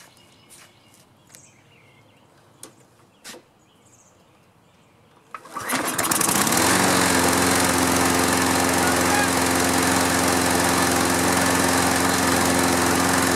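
Toro Recycler walk-behind mower's engine starting once cooled down: after a few quiet seconds it cranks briefly about five seconds in, catches with a rising note and settles into a steady run. It starts readily cold, in keeping with a fault that stops it restarting only when hot.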